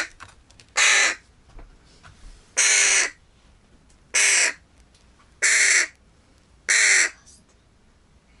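Hooded crow fledgling cawing: five loud, harsh calls spaced about a second and a half apart.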